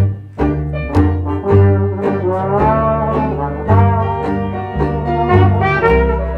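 Small traditional jazz band playing an instrumental passage. Trumpet and trombone carry the melody over a plucked bass line and banjo strumming on a steady beat.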